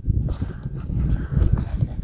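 Wind buffeting the microphone: an irregular, gusting low rumble, with a faint hiss over it for the first second or so.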